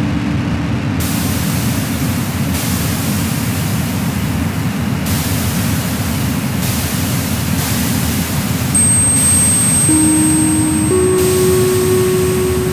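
Electronic noise music: a loud, dense wall of rushing noise, with a layer of high hiss cutting in and out every second or two. A thin high whistle enters about two-thirds of the way through, and held low drone notes stepping in pitch come in near the end.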